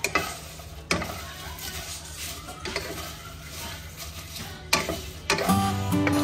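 Small dried fish being stir-fried in a wok, with a wooden spatula scraping through them and now and then knocking against the pan over a light sizzle. Acoustic guitar music comes in near the end.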